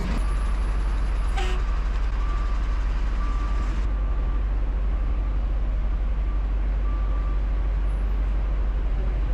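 Diesel engine of a Franna pick-and-carry crane running with a steady low rumble while it carries an outrigger pad. A few short beeps from the machine's alarm come through the engine noise.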